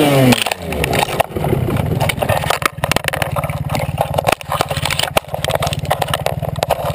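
A Kawasaki dirt bike crashes into brush: its engine revs fall away at the start, then dry branches crack and snap repeatedly as the bike and rider go down among the trees. Under the cracking, the engine keeps idling steadily.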